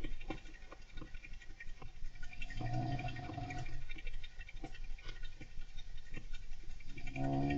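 Golden hamster scratching and scrabbling in its cage, a steady run of quick small scratches and taps. A person's gentle snore comes about three seconds in, and another begins near the end.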